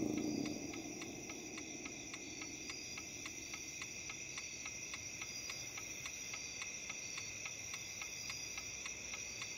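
A clock ticking quickly and evenly, about three to four ticks a second, over a faint steady high whine. The tail of a louder sound dies away in the first half second.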